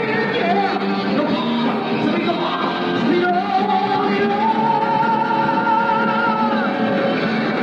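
Rock music playing, with one long held note through the middle of the passage.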